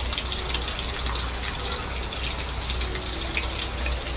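Running water with scattered small splashes and drips, over a steady low hum.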